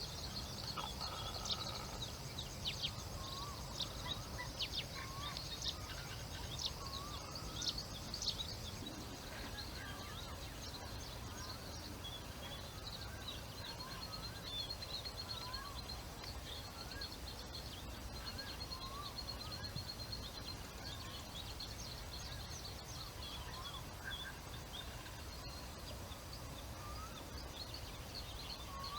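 Wild birds calling in open country over a steady low rumble. Many quick high chirps come in the first eight seconds or so. After that a short, lower curved note repeats every second or two, with now and then a fast high trill.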